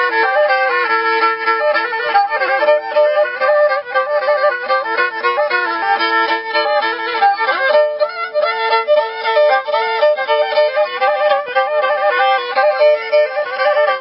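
Instrumental folk music: a fiddle-like bowed string instrument plays a quick-moving melody over held lower notes, with no bass.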